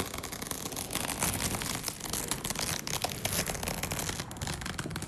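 Dense crackling, crinkling noise that keeps up evenly for about four seconds, then fades away near the end.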